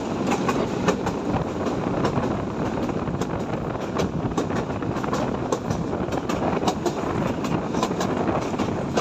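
Local passenger train running along the line, a steady rumble and rush of noise with frequent sharp clicks of the wheels on the rails, heard from an open window of the coach.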